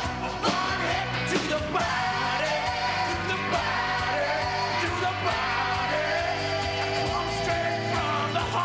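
Rock song with a singer over a steady drum beat.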